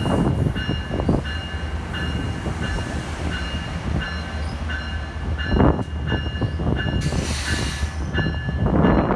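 NJ Transit commuter train at a station platform: a steady low rumble with a high ringing tone repeating about twice a second. There is a burst of air hiss about seven seconds in, and heavier thuds near the six- and nine-second marks.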